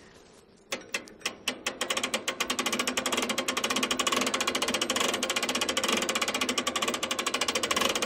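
An engine starting: a few separate firing strokes about a second in, quickly speeding up into a fast, steady clatter.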